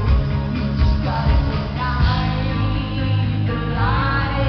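Live pop-rock performance: a woman's lead vocal sung into a microphone over a band with guitar, bass and drums keeping a steady beat.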